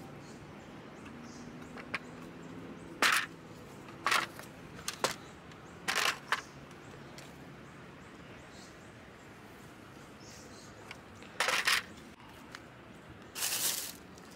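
Scattered knocks and clicks from a plastic radiator fan and shroud being handled and set down. Near the end there is a short, hissy rustle of a plastic bag.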